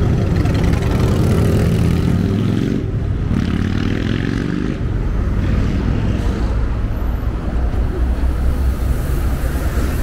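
City street traffic: a steady low rumble of vehicles, with a passing engine changing pitch through the first five seconds.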